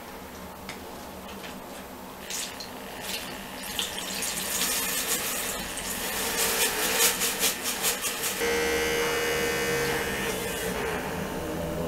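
StylePro battery-powered makeup brush spinner whirring with a brush spinning in its bowl of cleaning liquid, the liquid splashing and spattering against the glass, starting about two seconds in. About eight seconds in the motor settles into a steady, even whine.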